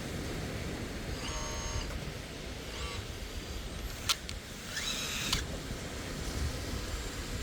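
Kabolite K961 hydraulic excavator working: its electric hydraulic pump whines in a few short spells as the controls are moved. A sharp click comes about four seconds in, over a steady low rumble.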